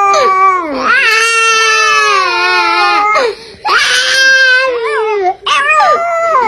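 Loud, wavering crying wails, several in a row. The longest lasts about two seconds, and the pitch slides up and down within each wail.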